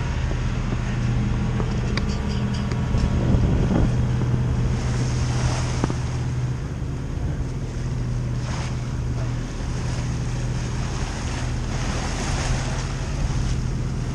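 Sailing yacht under way at sea: water rushing and splashing along the hull in surges every few seconds, with wind on the microphone, over the steady low drone of the boat's engine.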